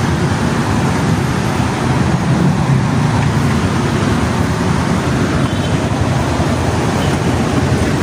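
Steady road traffic noise: a constant low rumble with hiss above it, holding at an even level throughout.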